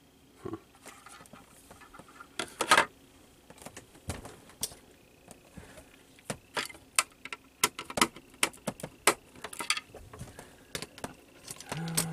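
Irregular clicks, taps and knocks of a plastic electronics case being handled and pulled apart, the loudest about three seconds in.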